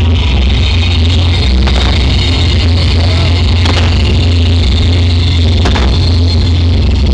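Loud music from a sound system with a heavy bass accompanies a fireworks display, over the hiss and crackle of fountain fireworks. A sharp hit stands out about every two seconds.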